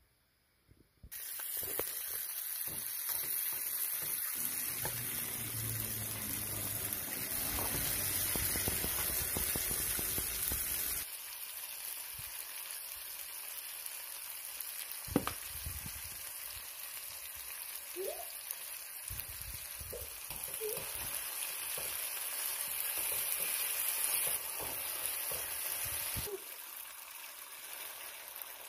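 Sausage slices with onion, pepper and tomato sizzling in hot oil in a frying pan, starting about a second in. A few sharp clicks and scrapes of a fork against the pan.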